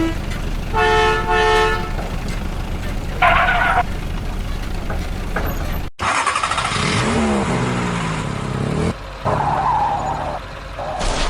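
Vehicle engine sound with a steady low rumble, broken by short horn toots about a second in and again near the middle. About six seconds in it cuts to a different engine sound whose pitch glides up and down.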